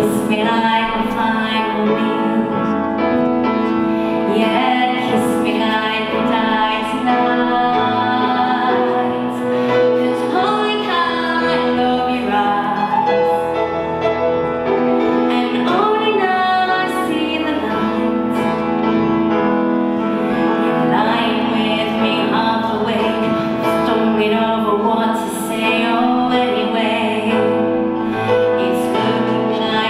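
A woman singing a ballad live, accompanied by a grand piano, holding long notes.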